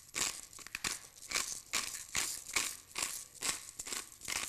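Hand pepper mill grinding peppercorns: a run of short crackling grinds, about two to three a second, as the mill is twisted back and forth.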